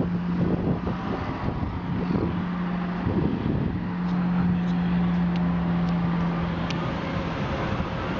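Steady rumble and road noise inside a moving vehicle, with a low steady hum that stops near the end.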